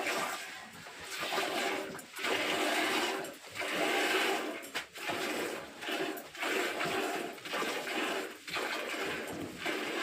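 Milk squirting into a pail as a cow is milked by hand: a rhythmic series of hissing streams, roughly one a second.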